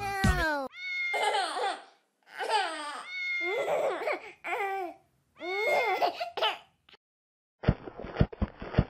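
A baby crying in three long bouts of falling wails. Near the end a quick run of tapping footstep sound effects begins.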